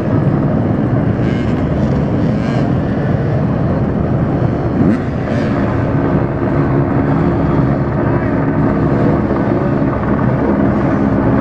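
Dirt bike engines and a helicopter running at once, heard as one loud, continuous engine drone. About four seconds in it settles to an even pitch.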